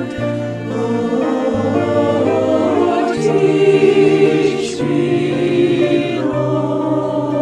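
Choir singing held chords over sustained bass notes that change every second or two.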